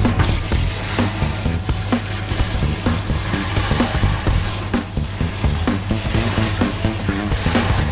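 Tap water pouring and splashing into a plastic pan of octopus in a stainless-steel sink, a steady hiss as the water foams over the octopus being washed. Background music with a steady beat runs under it.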